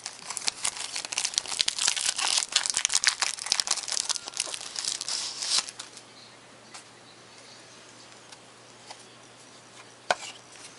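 A trading card pack wrapper being torn open and crinkled, with a dense crackle of rustling and tearing that stops about halfway through. A few scattered clicks of cards being handled follow.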